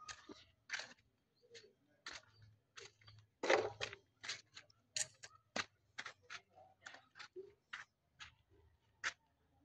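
Faint footsteps on gravel and packed dirt: short, sharp, slightly irregular steps at about two to three a second.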